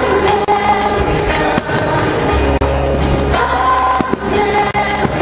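Music with a singing voice, with a few sharp firework bangs cutting through it.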